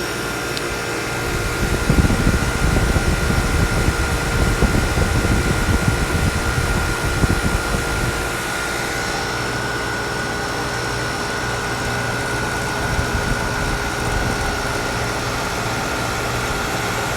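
1973 Gibson 8000 BTU window air conditioner running, its fan and compressor making a steady hum with a thin, constant high whine. From about two seconds in until about eight seconds, a rough, louder low rumble is laid over it.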